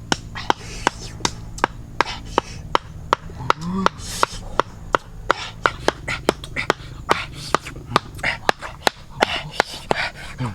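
Steady chopping, about two to three sharp strikes a second.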